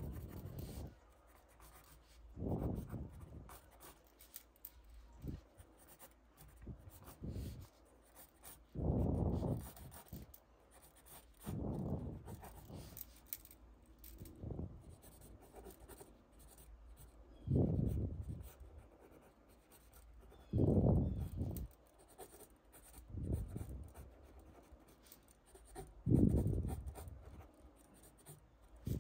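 Paper Mate Sharpwriter pencil drawing on a sheet of sketch paper: about a dozen separate shading and line strokes, each lasting under a second to a second, irregularly spaced, with fainter light sketching between them.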